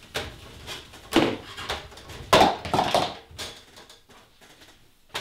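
Footsteps climbing a spiral staircase: a run of uneven knocks and thuds, the heaviest about a second in and about two and a half seconds in.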